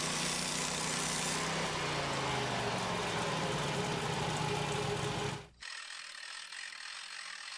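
Portable band sawmill's engine running steadily, its pitch gradually sagging over a couple of seconds. About five and a half seconds in it cuts off abruptly to a quieter steady hum.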